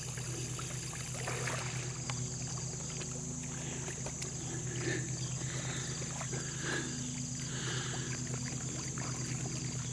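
Channel catfish feeding at the surface of a pond: scattered soft splashes and slurps of water as they take food, over a steady low hum.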